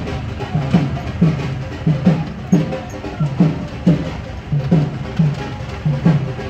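Music with a heavy drum beat: low drum hits that drop in pitch, about two or three a second, over a fuller backing.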